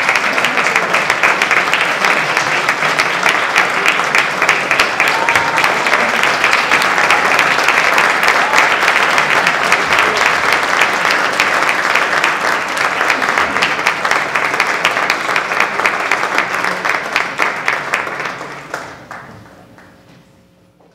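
Audience applauding steadily, a dense patter of many hands clapping, fading away over the last few seconds.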